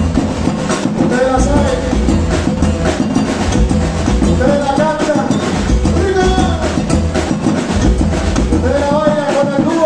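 A live Latin band playing: congas and timbales keep a steady beat under keyboard, with a pitched melody line rising and falling over it.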